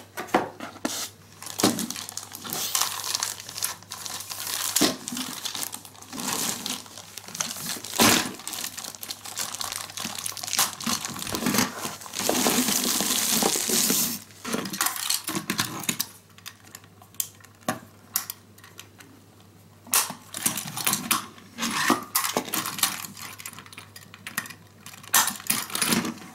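Cardboard box and plastic packaging crinkling and rustling as a Plarail toy shinkansen set is unpacked, with scattered clicks and knocks of hard plastic train cars being set down and coupled. A longer stretch of rustling comes about twelve seconds in.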